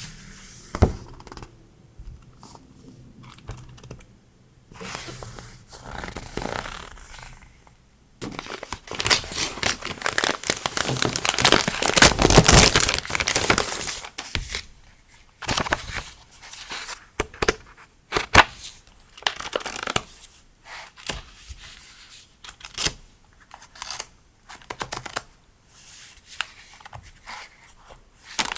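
Packaging being handled and opened by hand, crinkling and tearing. Quiet rustles and light taps at first; a dense run of crinkling begins about a third of the way in and is loudest near the middle, then gives way to scattered rustles and small clicks.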